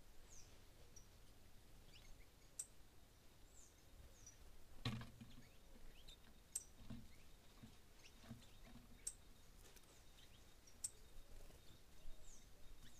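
Near silence with faint, scattered short bird chirps and thin high ticks. A dull knock about five seconds in, and a few softer ones after it.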